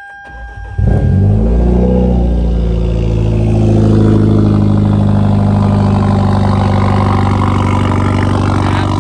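Hyundai Genesis Coupe 2.0T's straight-piped turbocharged four-cylinder starting up: a brief crank, the engine catches about a second in and flares in revs, then settles into a loud, steady idle.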